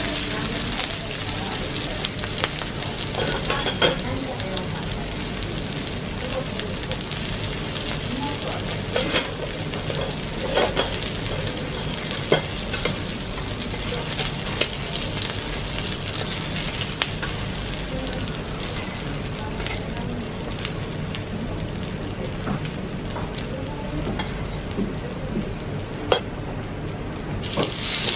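Gopchang (beef small intestine) sizzling and frying on a grill: a steady sizzle with occasional sharp clicks. The high sizzle briefly drops out near the end.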